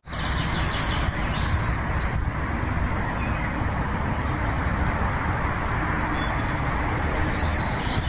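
Wind blowing across the microphone: a steady, rumbling rush of noise, heaviest in the low end, that starts suddenly at the beginning.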